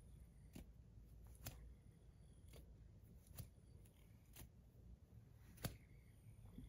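Tungsten NJT Nebu 2.0 fidget spinner being flicked by a finger as it spins in the hand: faint, short clicks, roughly once a second, over near silence.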